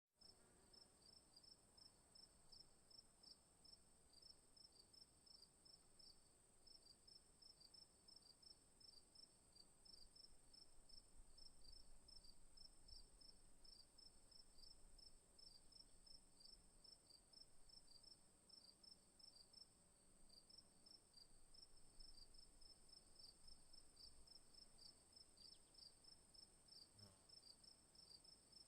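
Faint chorus of crickets chirping: a continuous, very high steady trill with a quicker string of short, repeated chirps just below it.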